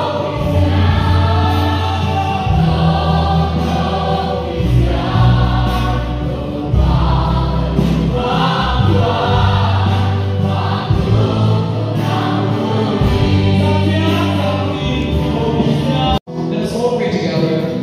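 A choir singing a Christian worship song over music with a low bass line. The sound cuts out for an instant near the end, then the music resumes.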